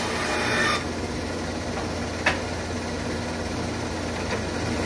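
Shopsmith bandsaw finishing a cut through a wooden spatula blank: the rasping cutting noise stops about a second in and the saw runs on unloaded with a steady hum. A single sharp click comes a little past the middle.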